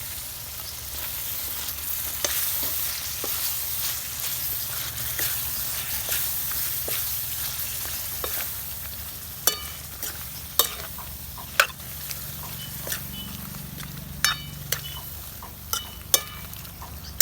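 Chicken frying and sizzling in a kadhai while being stirred. From about halfway in, a metal spoon strikes the pan several times with sharp clinks as the sizzle dies down.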